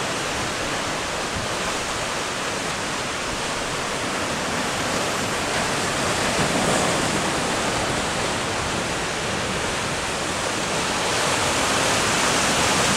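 Sea surf breaking and washing over shoreline rocks: a steady rush of water that swells about six seconds in and again near the end.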